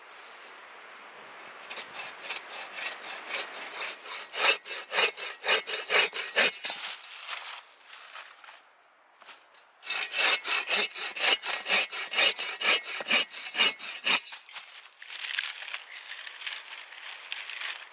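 Hand saw cutting through wood for a campfire: two runs of steady back-and-forth strokes, about two a second, with a short pause between them, then a softer scraping near the end.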